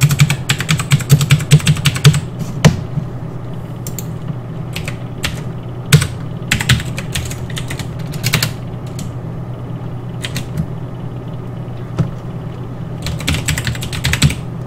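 Typing on a computer keyboard in uneven bursts: a fast run of keystrokes at the start, scattered single keys through the middle, and another fast run near the end. A steady low hum runs underneath.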